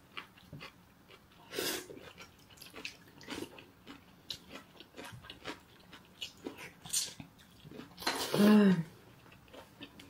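Close-up eating sounds of cold naengmyeon noodles: chewing with short smacks and small clicks. About eight seconds in comes a louder, brief pitched sound that rises and then falls.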